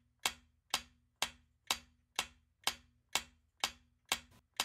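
Clock-style ticking sound effect of a quiz countdown timer: sharp, even ticks about two a second.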